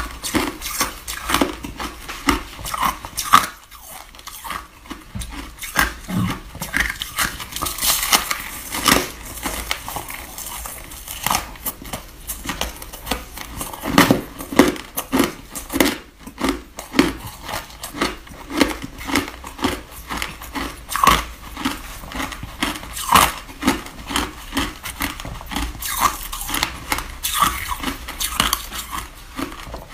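Chewing mouthfuls of packed white snow ice close to the microphone: a steady run of crisp crunches, a few a second, with a brief lull about four seconds in.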